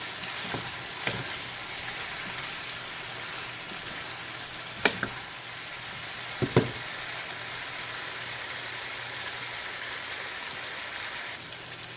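Chicken and potato pieces frying in spiced masala in a pot, a steady sizzle, with a spoon striking the pot sharply a couple of times around the middle.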